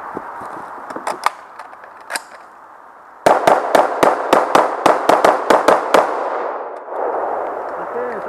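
Rifle shots in a practical shooting stage: a few quieter cracks, then a rapid string of about fourteen loud shots, roughly five a second, lasting close to three seconds.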